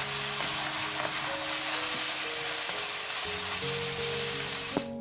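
Sliced shiitake mushrooms and vegetables sizzling in a hot stainless steel wok while a wooden spatula tosses them. The sizzling is steady and stops abruptly near the end.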